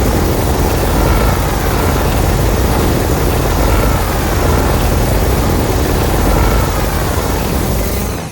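Loud, steady rushing rumble from a kaiju sound effect made for a fan-made Godzilla character, with a faint wavering tone riding on top; it dies away at the end.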